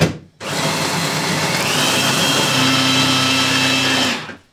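Small electric food chopper running, blades grinding a stiff cheesecake-base mixture. It starts about half a second in and stops near the end, and its whine steps up in pitch partway through.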